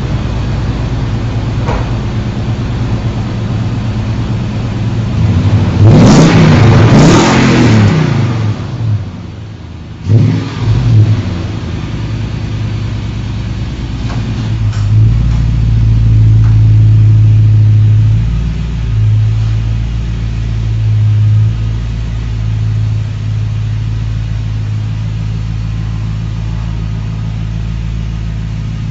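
Toyota Sequoia V8 exhaust heard close to the tailpipe, idling steadily. It is revved once, rising and falling, about six seconds in, then blipped twice around ten seconds. A longer, louder stretch of running follows midway through, about as the truck pulls away.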